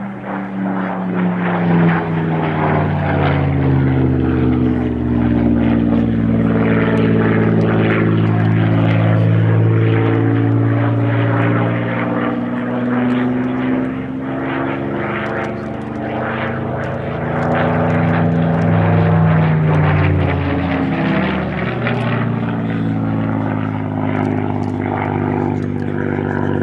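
Supermarine Spitfire PR XI's Rolls-Royce Merlin V12 engine and propeller, loud as the fighter flies display passes. The engine note slides down and back up in pitch as it goes by and turns, swelling and easing in loudness.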